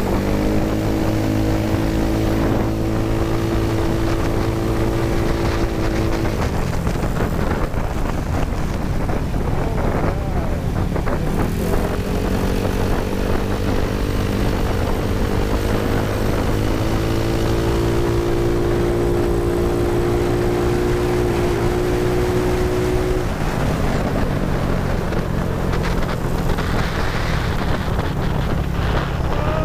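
Honda Ruckus scooter's GY6 single-cylinder engine running under way, over a constant low hum and wind on the microphone. Its pitch climbs and holds, falls away about six seconds in, picks up again around twelve seconds, steps higher around seventeen, and drops back about twenty-three seconds in.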